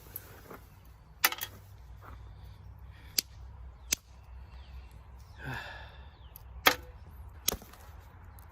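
Flintknapping a piece of blue-gray chert: about five sharp, brief clicking strikes at irregular intervals, spread through the few seconds, as a flake is struck off the stone. A softer rustle comes about halfway through.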